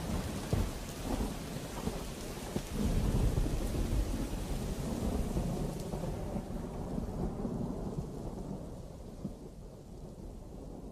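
Low rumbling, crackling noise like rain and thunder, with no tune, fading slowly out over the last few seconds of a song's outro.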